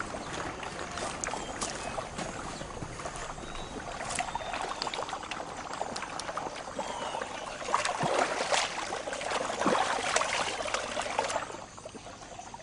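Stones being handled and set onto a rough stone-and-mud wall: a gritty scraping with many small knocks, busiest in the second half and stopping abruptly near the end.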